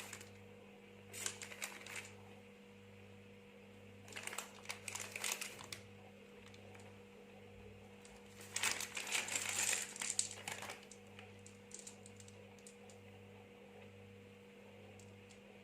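Three short spells of light clicks, taps and rustles from hands placing chocolate decorations on donuts, over a steady low hum.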